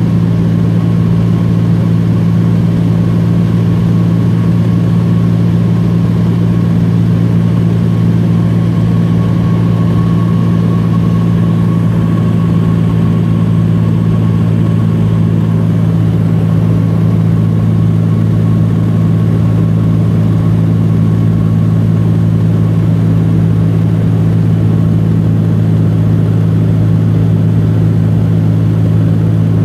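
Steady drone of a small single-engine plane's engine and propeller heard from inside the cabin in level flight: a loud, deep, unchanging hum with a faint steady whine above it.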